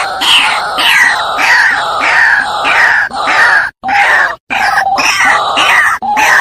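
White-breasted waterhen calling: a loud, harsh run of repeated notes, each falling in pitch, about three a second, broken by two short pauses a little after the middle.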